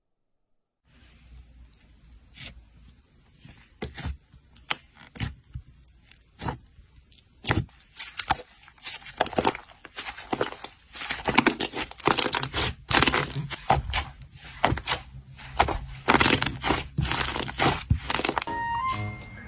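Slime being squeezed and poked by hand, making crackling clicks and pops. They are sparse at first and become dense about halfway through. Background music comes in near the end.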